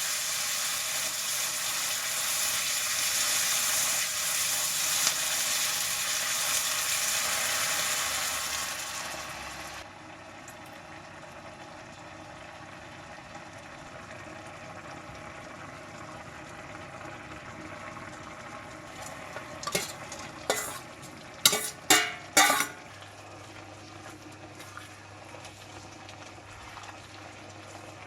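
Food frying and sizzling in hot oil in a pan, loud at first, then cutting off sharply about ten seconds in to a quieter sizzle. Near the two-thirds mark there is a short run of sharp clatters, like cookware knocking.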